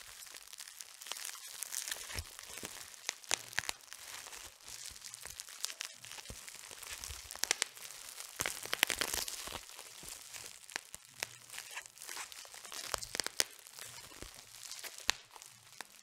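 Plastic bubble wrap crinkling and tearing, with sharp pops of bursting bubbles scattered through it and several coming close together about halfway through.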